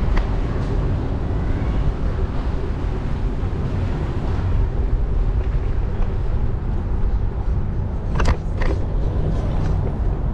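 Wind rumbling steadily on the microphone of an action camera carried on a moving bicycle, with two sharp clicks or knocks in quick succession about eight seconds in.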